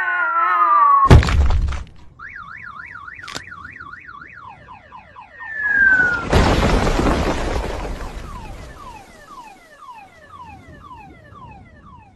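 Cartoon sound effects: a falling whistle that ends in a loud crash about a second in, then a fast warbling alarm-like tone. A second falling whistle leads into a long crashing rumble, followed by a run of short falling chirps that fade away.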